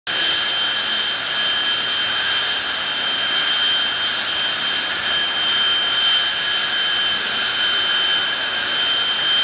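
Jet dragster's turbojet engine running steadily, a constant high-pitched whine over a rushing hiss, with no change in pitch.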